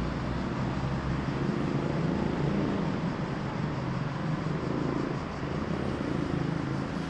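City road traffic: a steady mix of car engines and tyre noise from vehicles passing by, swelling a little near the middle.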